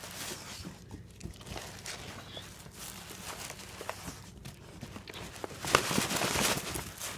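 Paper gift bag and tissue paper rustling and crinkling as a dog noses and paws at it, with scattered small taps and a louder stretch of rustling near the end.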